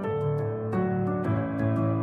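Instrumental background music: held notes that change about every half second, over a light, regular ticking beat.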